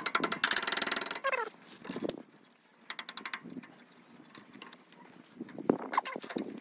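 Ratchet wrench clicking rapidly as a bolt is turned on a tractor's front mounting bracket, followed by a few shorter runs of clicks as the tightening goes on.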